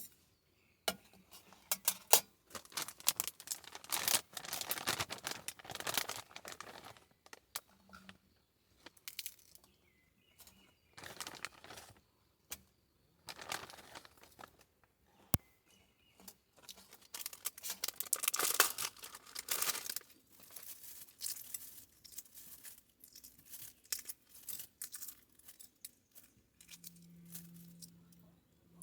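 Irregular rustling and crinkling with sharp clicks and clinks, as things are handled, unwrapped or packed by hand at the camp.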